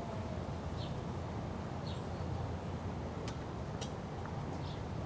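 Outdoor city ambience: a steady low rumble of traffic, with short faint high chirps about once a second and two sharp clicks a little past the middle.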